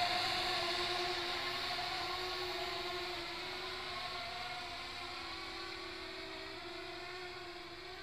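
Propellers and electric motors of a four-rotor RC flying-saucer drone giving a steady buzzing hum. The hum fades gradually as the craft flies away.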